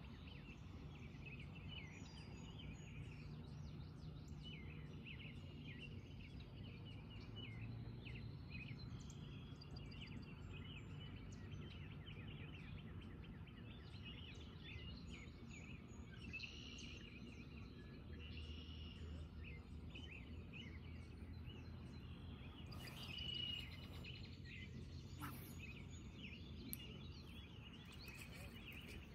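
Quiet outdoor ambience: many small birds calling with frequent short chirps, over a low steady hum.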